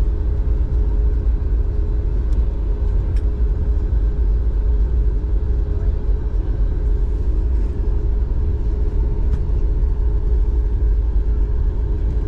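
Steady low rumble of cabin noise inside a Boeing 737 MAX 8 airliner, with a steady hum over it and a few faint clicks.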